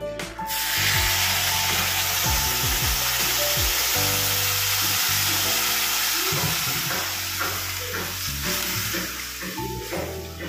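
Liquid poured onto hot roasted semolina (suji) in a frying pan: a loud sizzle breaks out about half a second in and slowly dies down as the mixture is stirred with a spatula.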